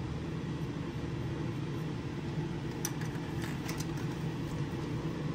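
Spray booth exhaust fan running with a steady hum, with a few faint clicks about three seconds in.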